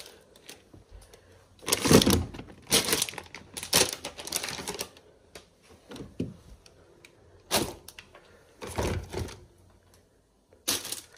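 Irregular clattering and knocking of hard objects being handled, in several short bursts a second or two apart.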